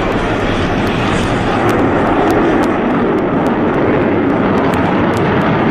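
Jet airplane engines, a loud steady rushing noise.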